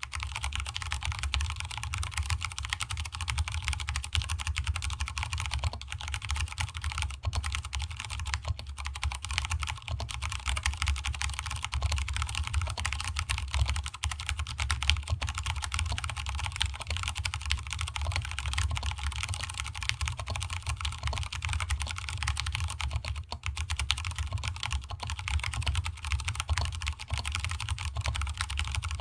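Continuous typing on a stock Vortex Cypher mechanical keyboard with Cherry MX Brown switches and DSA keycaps: a steady stream of key clacks, with a hollow, low resonance from the desk under the keyboard.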